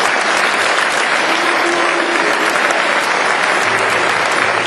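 Audience applauding: many hands clapping in a steady, unbroken stream.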